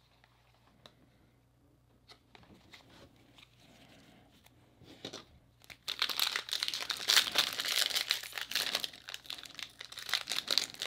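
Faint light ticks of trading cards being handled, then from about six seconds in a loud, continuous crinkling and tearing as the foil-lined wrapper of a baseball card jumbo pack is ripped open.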